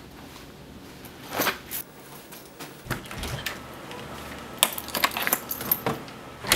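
Small household handling sounds: a brief jingle of a bunch of keys being picked up about a second and a half in, then a few sharp clicks near the end as a wall toggle light switch is flicked off.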